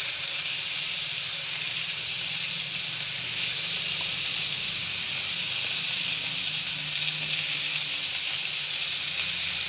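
Chicken pieces frying in oil in a nonstick frying pan: a steady, even sizzle as the pieces start to roast.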